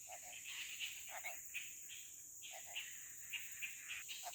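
Forest insect chorus: a steady, high-pitched drone with many short, irregular chirping calls from other animals over it.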